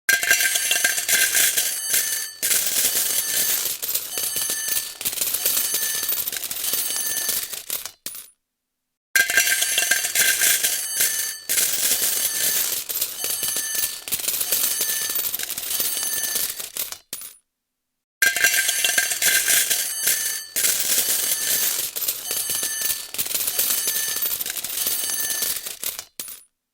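Slot machine jackpot payout: a dense stream of coins clattering and clinking out into the metal coin tray. It plays three times, each run about eight seconds long with a brief silence between, and each opens with a short ringing tone.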